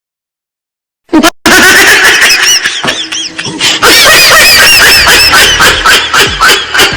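About a second of silence, then loud, high-pitched laughter, a rapid run of squeaky rising-and-falling notes.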